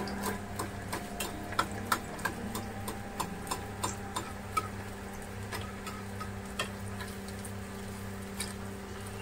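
Fish pakoda deep-frying in hot mustard oil in a steel kadai, with a steel slotted spoon stirring and tapping against the pan: scattered sharp ticks and crackles, frequent over the first few seconds and sparser after, over a steady low hum.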